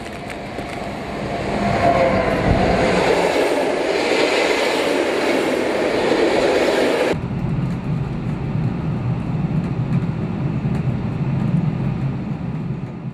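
NSB El 18 electric locomotive and its passenger coaches running past close by, wheels rumbling on the rails, building to loud within about two seconds. About seven seconds in, the sound cuts abruptly to a steadier, lower rumble of the train.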